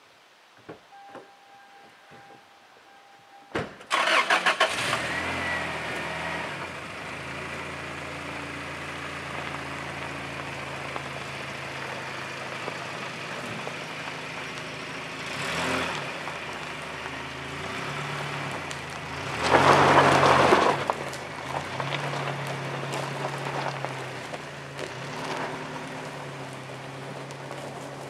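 Toyota Tacoma pickup engine starting about three and a half seconds in. It then runs steadily as the truck pulls away, dragging a felled log on a steel cable hitched to its rear spring, with two louder surges of throttle, the longer and loudest one about twenty seconds in.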